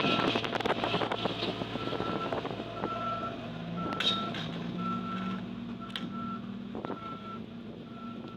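A heavy construction vehicle's reversing alarm beeping steadily about once a second, over the vehicle's diesel engine running.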